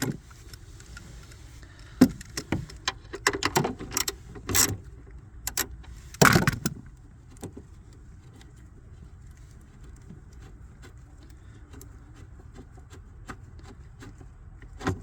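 Scattered metallic clicks and knocks of a socket wrench being worked on a seat-belt anchor bolt, with the bolt and tool handled, mostly in the first half. Under them runs a faint steady low hum.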